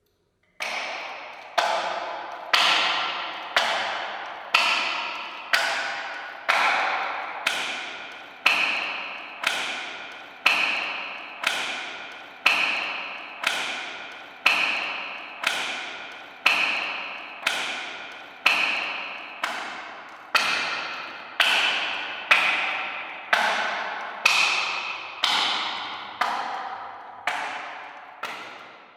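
Knocking on a door: single sharp knocks at a steady pace of about one a second, each ringing on with a pitched tone that fades before the next knock.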